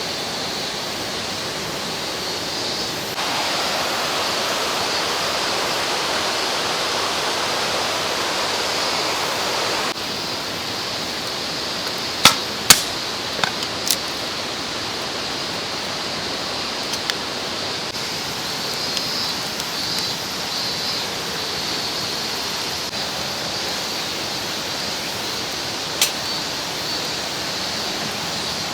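Mountain stream rushing steadily, a little louder for several seconds early on. A few sharp clicks or knocks come about halfway through, and one more near the end.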